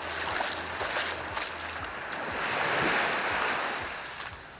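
Sea wave breaking and washing up onto the beach, swelling to its loudest about three seconds in and then fading.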